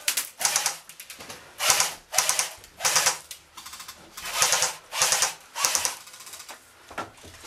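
Airsoft electric guns firing short full-automatic bursts: a rapid mechanical clicking rattle, repeated about eight times.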